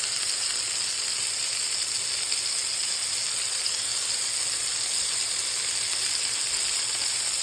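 Beef burger patties sizzling steadily as they fry on high heat, a constant even hiss.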